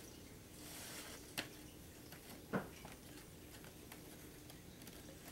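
Faint small ticks and rustles of fingers handling a thin wooden stringer against a laser-cut wooden model-aircraft fuselage frame on paper plans, with one slightly louder tap about two and a half seconds in.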